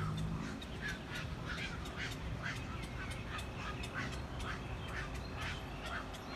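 A rapid series of short, harsh animal calls, about two or three a second, keeps going steadily.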